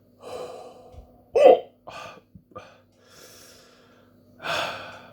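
A man hiccuping, with one sharp, loud hiccup about a second and a half in, among short breaths and a strong exhale near the end. The hiccups are brought on by eating a superhot chilli pod.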